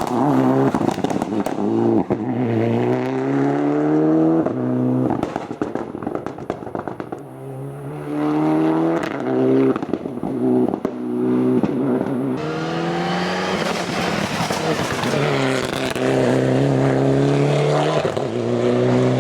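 Mitsubishi Lancer Evo 9's turbocharged four-cylinder engine driven hard, revs climbing and dropping through several gear changes. In the middle the revs fall away with crackling and popping, then it pulls up through the gears again.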